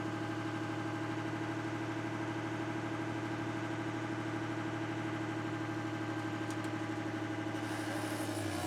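An engine idling steadily at an even pitch. A hiss joins it near the end.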